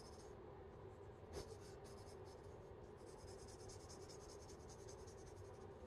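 Pencil scratching on paper in quick short strokes, faint. There is a soft knock about a second and a half in.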